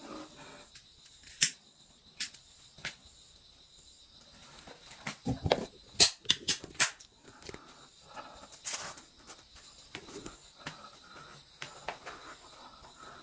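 Handling noises: scattered sharp clicks and taps, with a busier cluster of clicks and low knocks about five to seven seconds in.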